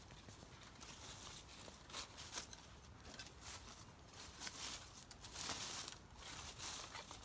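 Dry bamboo leaves crackling and rustling as a long-handled digging tool jabs and scrapes into the leaf litter and soil to dig up a bamboo shoot, in irregular scrapes and crunches.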